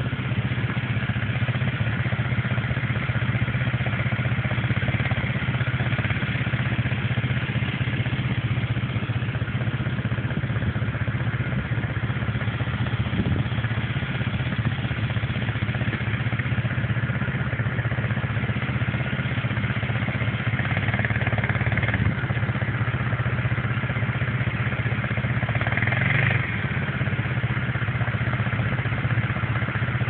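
Quad bike (ATV) engine running steadily, holding an even note without revving, as it is driven through a shallow river.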